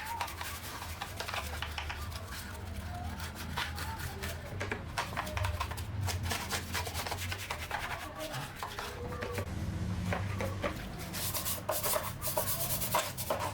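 Quick, irregular rubbing strokes against a blower part being repaired and cleaned, as in hand sanding or scrubbing, over a low steady hum. The strokes grow denser and brighter near the end.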